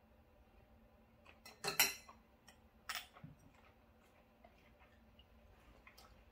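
A few light clinks and taps of a water dropper and glassware on a glass tabletop: a quick cluster about two seconds in, the loudest, and a single clink about a second later.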